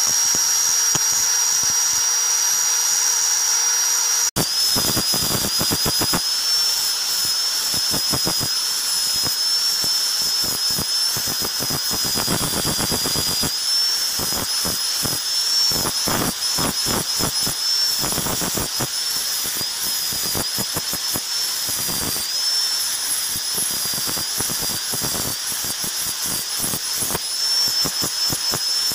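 Angle grinder running with a high whine, its abrasive disc grinding the steel knife blade with a steady rasp. There is a brief break about four seconds in, after which the whine sits a little lower and wavers slightly.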